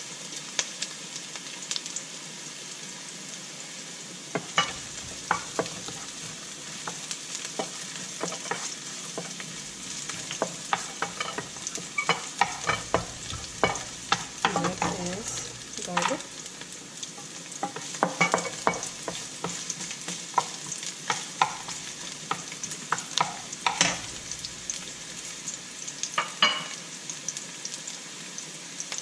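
Sliced onions sizzling in hot oil in a nonstick wok, with a steady frying hiss. A wooden spatula scrapes and taps against the pan as the onions are stirred, starting a few seconds in and coming in irregular clusters.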